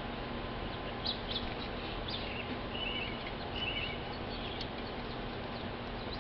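Small songbirds calling near a seed feeder: short high chirps about one and two seconds in, then two brief whistled double notes around the middle, over a steady background hiss.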